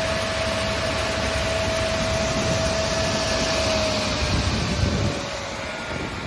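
Raimann crawler-feed multi-rip saw running, a loud steady machine noise with a high whine from the saw shaft. A little before halfway the whine starts to slide down in pitch and the noise eases off as the saw slows.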